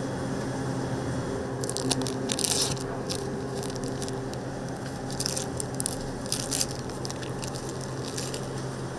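Food preparation at a toast griddle: two clusters of short, crisp crackling noises over a steady low hum.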